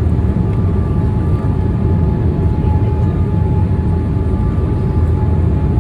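Boeing 787 airliner heard from inside the cabin: a steady low rumble of engines and airflow, with a faint steady whine over it.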